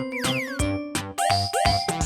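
Upbeat children's background music with a steady beat, with a cartoonish sliding whistle-like sound effect near the start.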